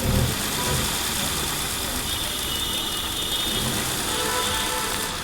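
Hyundai Accent engine running on company-fitted CNG at idle, misfiring: the number 2 cylinder's CNG injector is faulty. A brief low thump right at the start.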